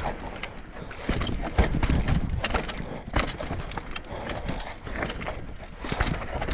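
Mountain bike descending a rough dirt trail: tyres rolling over dirt and rocks, with irregular knocks and clatter from the bike as it hits bumps.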